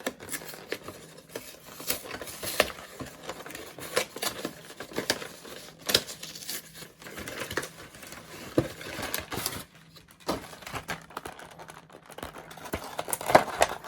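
Foil booster-pack wrapper being torn open and crinkled by hand, with irregular sharp crackles and rustling.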